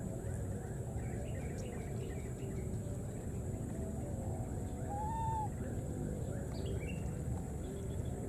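Faint, high animal calls over a steady low background rumble, the clearest a single short arched coo about five seconds in.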